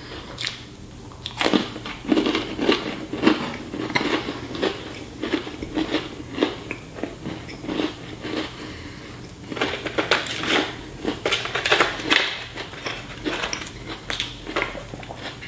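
A person chewing crunchy crackers with turkey and cheese in quick mouthfuls, with irregular crackling crunches. There are light clicks and rattles from the plastic Lunchables tray being handled.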